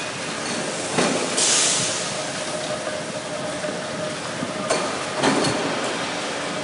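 Machinery factory shop-floor noise: a steady din broken by metal clanks about a second in and again near the end, with a short burst of compressed-air hiss about a second and a half in.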